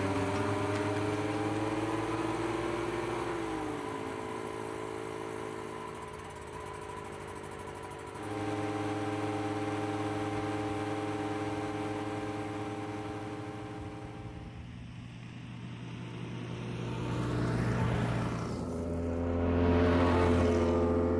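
Vintage car engine running as the car drives along, its pitch rising and then falling in the first few seconds, then holding steady. Near the end the car passes by with a swelling rush of engine and road noise.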